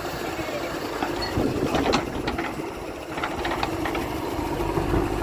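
JCB 3DX backhoe loader's diesel engine running steadily under load as the backhoe arm swings and digs, with a few short knocks.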